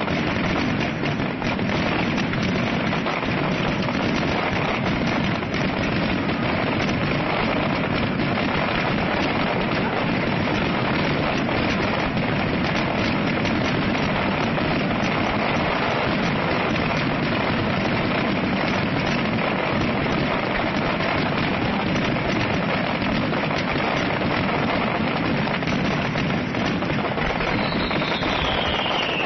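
Fireworks grand finale: a dense, unbroken barrage of shells bursting and crackling over one another at an even, loud level. A single falling whistle comes near the end.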